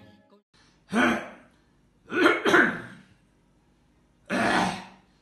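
A man coughing in separate fits: one cough about a second in, two close together a little after two seconds, and another near the end.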